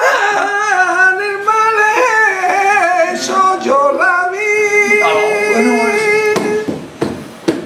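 A man singing flamenco colombianas in a long, wavering melismatic line with held notes that bend in pitch. A few sharp strikes come near the end as the voice fades.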